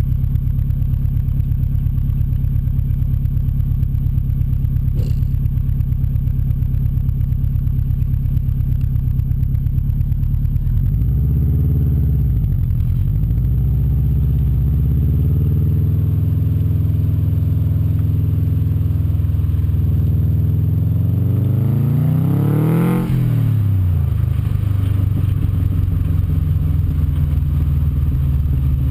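Subaru Liberty RS Turbo's EJ20 turbocharged flat-four heard right at the tailpipe of its 3-inch Hi-Tech aftermarket exhaust. It idles steadily for about ten seconds, gives a couple of short revs as the car moves off, and runs at low speed. About two-thirds of the way in it climbs in a long rising pull, then drops sharply.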